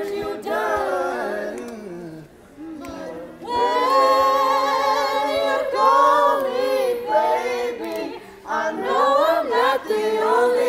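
A woman singing a cappella, holding loud notes with vibrato. A softer stretch comes about two seconds in before she belts again.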